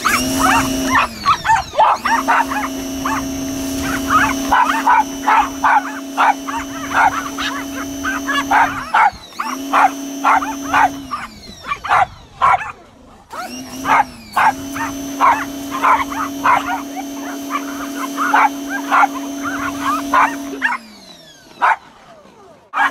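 Electric pressure washer's motor and pump running in four spells. Each spell starts with a rising hum and ends with a falling one. Dogs bark and yap over it throughout.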